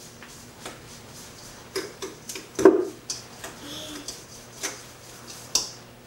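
Small irregular clicks and taps of an eggshell being cracked and picked apart over a small bowl, the loudest knock about two and a half seconds in and another sharp click near the end.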